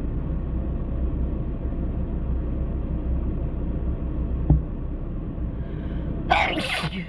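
A person with a cold sneezes once near the end, a sharp loud burst. Under it a steady low rumble runs on, with a short thump a little past halfway.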